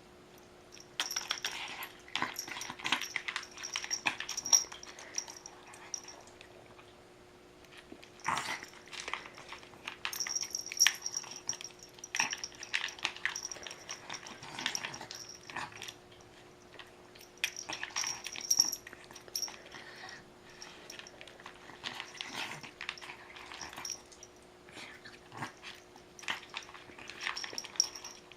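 A pet eating at its bowl, mouth sounds coming in bursts of one to two seconds with short pauses between.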